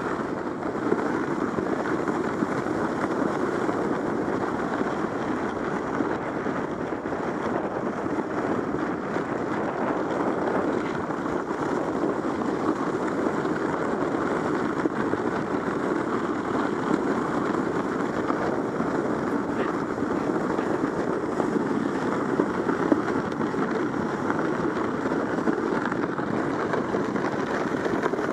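Zipfy plastic mini-luge sled sliding fast over packed snow: a steady scraping hiss and rumble of the sled's hull on the snow.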